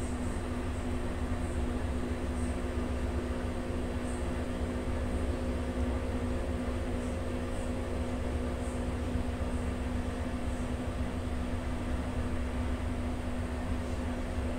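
Steady mechanical background hum with a constant low tone and rumble, unchanging throughout.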